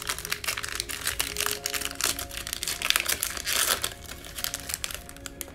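Foil wrapper of a Panini Mosaic football card pack crinkling and tearing as it is peeled open by hand; the crinkling stops near the end. Quiet background music plays underneath.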